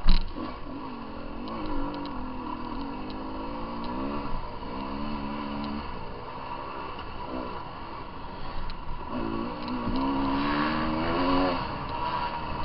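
Dirt bike engine being ridden off-road, revving up and down with the throttle, its pitch rising and falling in two long stretches. There is a sharp knock right at the start, and a few light clicks and rattles.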